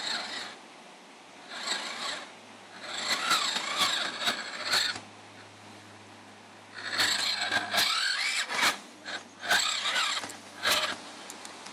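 Radio-controlled crawler truck's small electric motor and drivetrain whining in repeated short bursts of throttle, the pitch rising and falling as it starts and stops.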